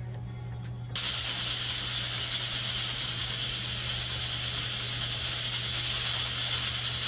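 Aluminium pressure cooker hissing steadily as steam escapes past its weighted valve: the cooker is up to pressure and cooking. The hiss starts abruptly about a second in.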